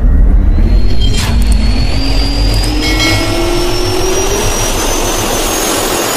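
Jet engine spool-up sound effect: a turbofan whine rising steadily in pitch, a high tone and a lower one climbing together over a heavy low rumble, with a brief sharp crack about a second in.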